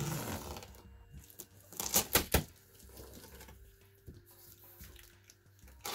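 Packing tape being peeled and torn off the top of a large cardboard box, with a few sharp rips in quick succession about two seconds in.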